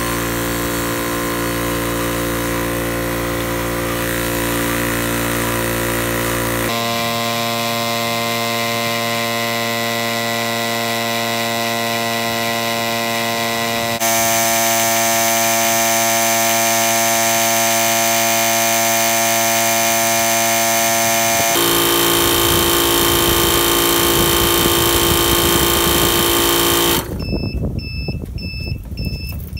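Yong Heng 4500 psi HPA compressor running as it fills an air tank, played sped up so its hum jumps higher in pitch in several steps. Near the end the motor stops and the compressor beeps repeatedly in two alternating pitches, its signal that the set 3000 psi has been reached.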